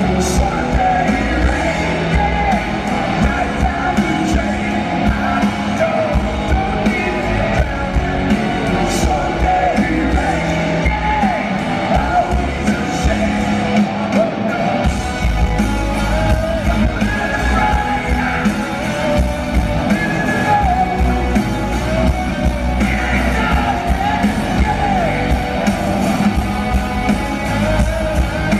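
Live rock band playing at full volume, with drums, bass, electric guitars and a lead vocal line, heard from within the arena audience.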